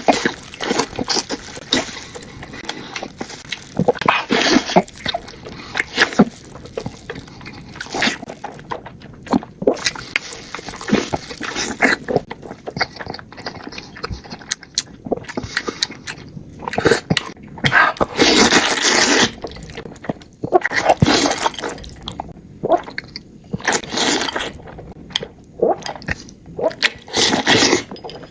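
Noodles being slurped and chewed close to the microphone: wet mouth sounds in irregular bursts, with several longer slurps.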